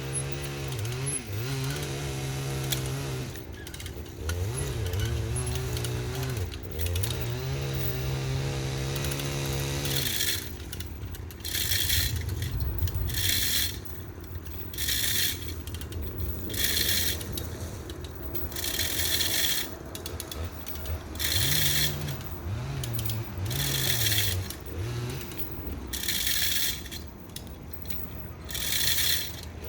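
Chainsaw cutting eucalyptus wood, its engine pitch rising and falling with the throttle for about ten seconds, then a series of short rasping bursts every one to two seconds as it keeps working.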